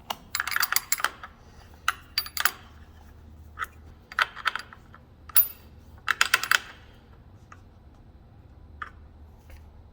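Short runs of sharp metallic clicks and clinks in several bursts, a few seconds apart: a hand tool working the nuts of an exercise bike's seat post clamp as they are tightened.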